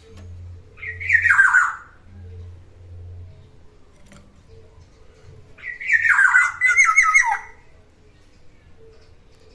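Black-naped oriole calling: a loud phrase dropping in pitch about a second in, then two more quick phrases back to back around six to seven seconds in.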